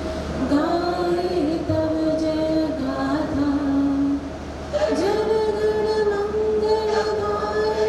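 Anthem being sung: a female voice holding long notes, with a short break between phrases about four seconds in.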